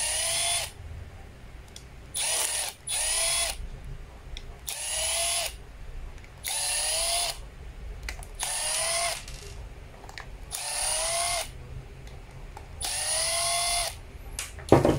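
Milwaukee cordless driver backing screws out of a drill's housing: eight brief whirring runs, each rising in pitch as the motor spins up. A single sharp knock comes shortly before the end.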